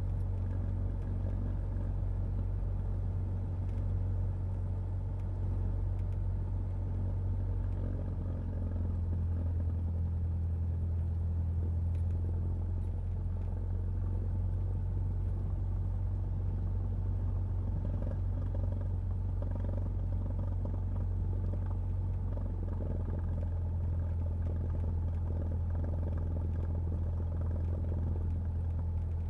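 Cessna 172's propeller-driven piston engine running at low taxi power as the plane rolls along the taxiway, a steady low drone.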